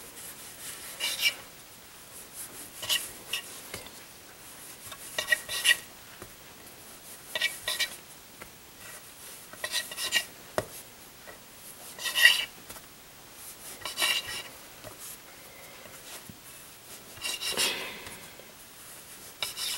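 Kitchen knife cutting through soft bread dough and scraping and clinking against a stone pastry board, one short cut about every two seconds.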